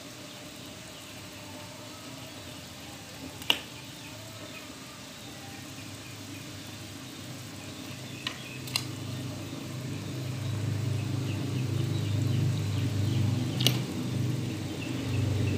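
Water boiling in an aluminium pot as pieces of pempek dough are cut off with a knife and dropped in, with four sharp clicks of the knife against the pot. A low rumble grows louder from about two-thirds of the way in.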